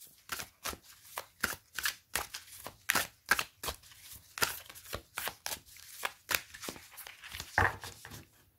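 A tarot deck being shuffled by hand, the cards slapping and sliding against each other in short, sharp snaps about two or three a second.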